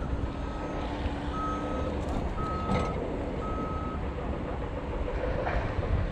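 A vehicle's reversing alarm beeping four times, about once a second, each beep a steady half-second tone, over a low engine rumble; the beeping stops about four seconds in.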